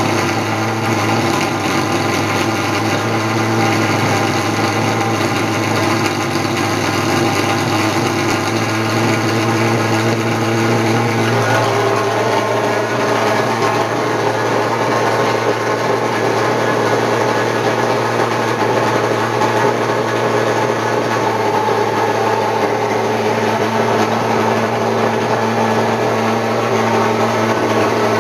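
Pulse-jet thermal fogging machine running with a loud, steady buzzing drone as it blows insecticide fog; its tone shifts slightly about twelve seconds in.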